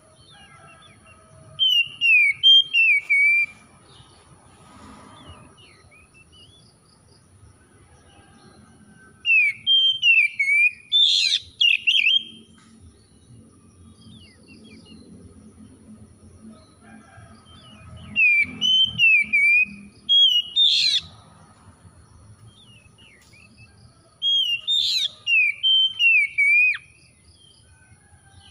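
Oriental magpie-robin singing: four loud bursts of rich, warbled whistling song, each a couple of seconds long with sharp high notes, separated by pauses of several seconds.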